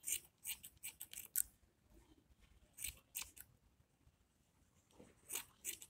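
Hand scissors snipping hair in short, crisp snips: a quick run of them in the first second and a half, then a pair around the middle and another pair near the end.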